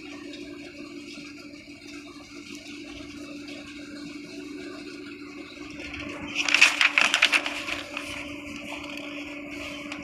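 Paper pages of a ring-binder wiring manual rustling as they are handled. The rustle is loudest for about a second, roughly six and a half seconds in, over a steady low hum.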